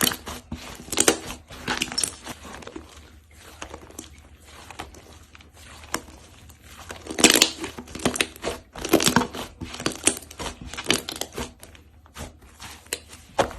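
Slime being squeezed and pressed by hand, giving irregular clusters of sharp crackling and crunching pops. The loudest come about seven seconds in and again around nine seconds.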